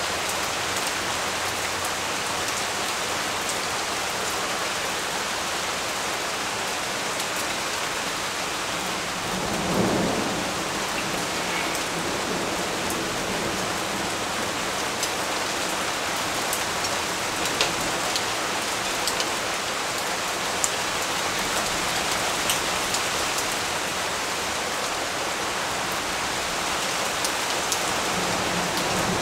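Steady rain falling on leaves, with scattered individual drops ticking. A brief low rumble of thunder swells up about ten seconds in.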